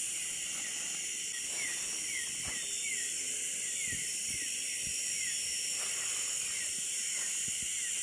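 Night insect chorus in tropical forest, a steady high shrill. In the middle a short falling chirp repeats a few times a second for about four seconds, with a few faint thuds underneath.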